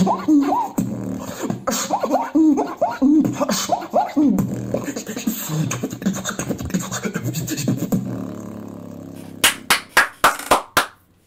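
Human beatboxing: repeated rising-and-falling pitched sweeps over a low bass line, fading out after about eight seconds. Then comes a quick run of about seven sharp hand claps near the end.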